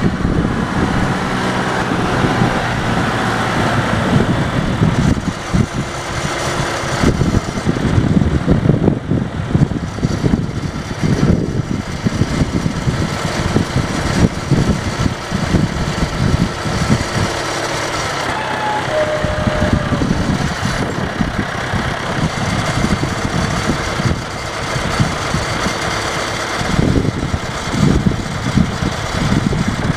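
Diesel engine of a John Deere 310A backhoe loader running, its loudness rising and falling unevenly.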